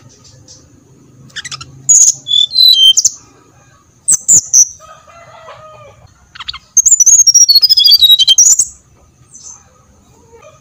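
Brown-chested jungle flycatcher (sikatan rimba dada coklat) song played as a lure track. It comes in loud bursts of high, sliding whistled notes, with the longest and busiest rapid run about seven seconds in.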